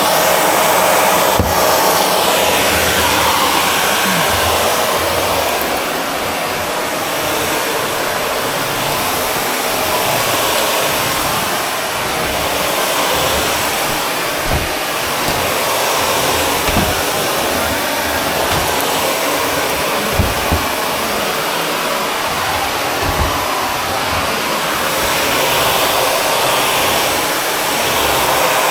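Shark Navigator Lift-Away upright vacuum cleaner running steadily during spot vacuuming. Its rushing airflow noise rises and falls slowly, with a few light knocks along the way.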